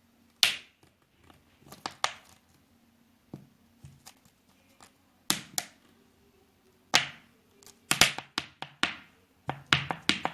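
Scattered sharp taps and slaps, about a dozen, with a quick run of them near the end.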